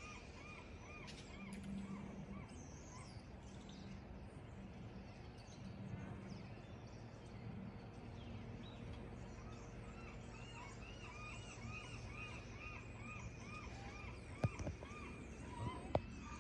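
A bird calling in quick runs of repeated chirps, about three a second, at the start and again a little past the middle, over a low steady hum. A few sharp knocks near the end.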